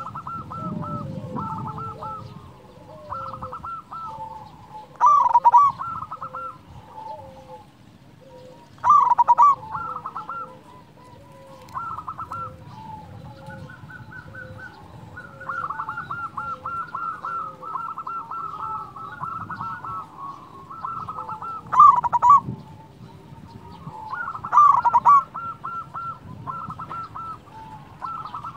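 Zebra dove cooing: a steady run of quick, rolling staccato coos, broken four times by much louder, fuller phrases.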